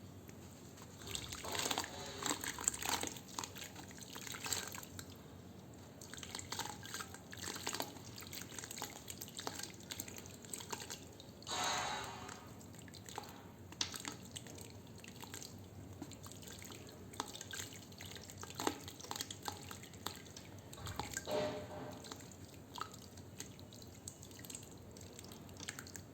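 Wet sand crumbling and falling into water: irregular crackles, drips and small splashes, with a longer crumbling burst about halfway through.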